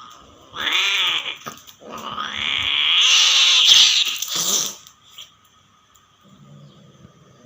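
Domestic cat yowling during mating: a loud yowl about half a second in, then a longer yowl that rises in pitch and lasts nearly three seconds.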